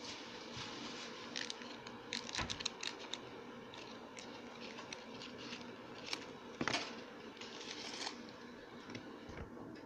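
Foil wrapper of a Pokémon trading card booster pack crinkling and tearing as it is opened, a run of short sharp crackles that cluster about two seconds in and again near seven seconds.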